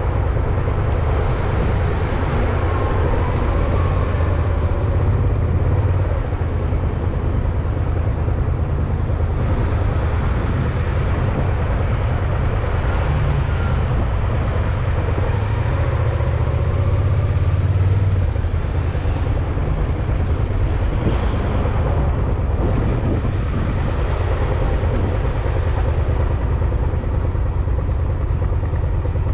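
Steady, loud low rumble of road noise on a moving ride, with vehicle sound in it.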